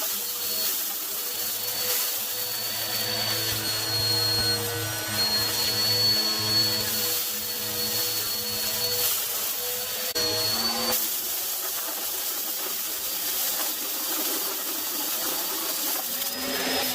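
Vacuum cleaner running steadily with a high motor whine over a rushing airflow. About ten seconds in the sound shifts briefly, and after that the low hum drops out.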